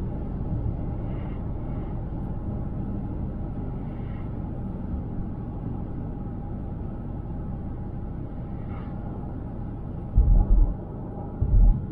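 A car driving along a highway: steady low rumble of road and tyre noise, with two heavy low thumps near the end.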